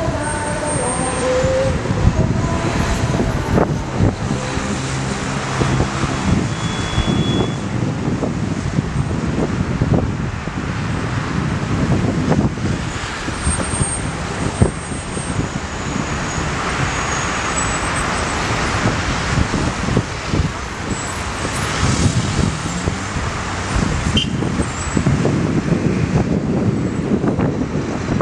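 City road traffic, with cars and buses passing and a continuous rush of engines and tyres.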